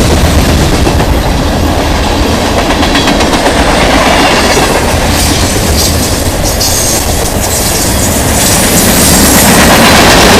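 Train passing close by, loud and steady, its wheels clattering over the rail joints, with faint high-pitched wheel squeal at times.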